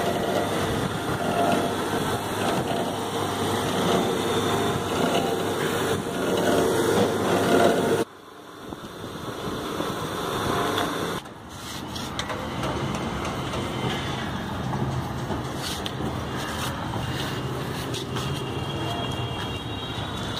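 Electric winch motor of a monkey crane mini material hoist running, winding its wire rope to lift a load; a steady mechanical hum. The sound drops off suddenly about eight seconds in and again near eleven seconds, then the hum carries on steadily.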